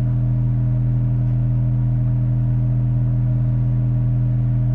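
Steady low-pitched tone with several overtones, from a test signal being played through the amplifier.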